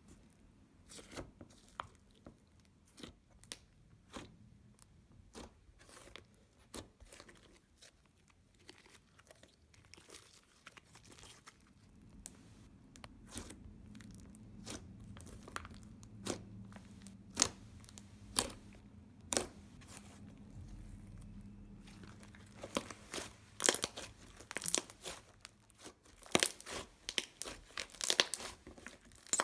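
Hands squishing and stretching slime: scattered sticky clicks and pops, turning into denser, louder crackling pops in the last several seconds.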